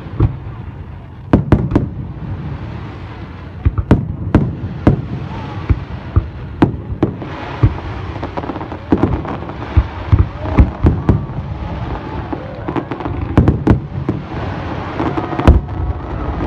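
Fireworks display: many sharp bangs at irregular intervals, several a second at the busiest moments, over a continuous crackling rumble.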